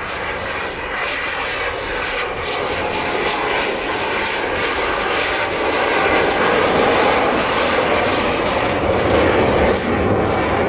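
Display aircraft at an air show flying past with a steady engine rush that swells over the first six seconds or so and then holds.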